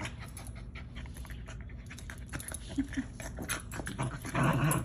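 A small terrier play-fighting: panting and low growls amid quick scuffles and snaps against fists on soft couch cushions. A louder rough burst of scuffling and growling comes near the end.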